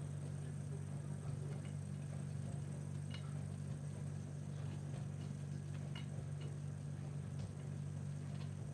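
Steady low hum with a few faint light clicks and taps as club sandwich pieces are lifted off a wooden chopping board and plated.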